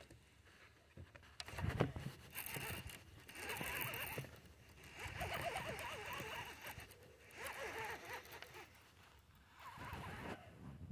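Fishing reel being cranked to bring in line, a whirring that comes in four or five bursts of about a second each, mixed with rustle from the hands handling the rod.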